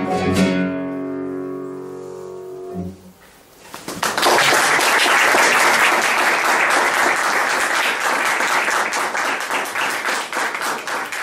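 Classical guitar's final chord ringing out and fading away. About four seconds in, an audience breaks into steady applause.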